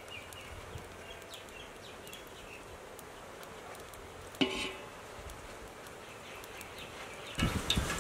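Quiet rural outdoor ambience with faint high chirps and one brief sharp call about four and a half seconds in. Near the end, a louder crackling, hissing noise starts suddenly.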